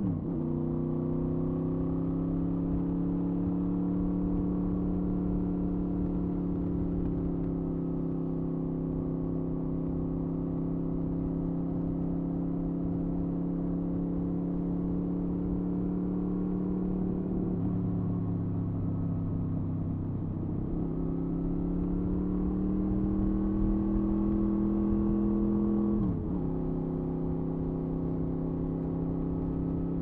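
2007 Honda VFR800A Interceptor's V4 engine and exhaust under way: the pitch drops with a gear change right at the start, then the bike cruises at a steady note. About eighteen seconds in, the note falls to a low steady hum for a few seconds, then climbs as the bike accelerates and drops sharply again with another upshift a little after twenty-five seconds. Wind rumbles on the microphone underneath.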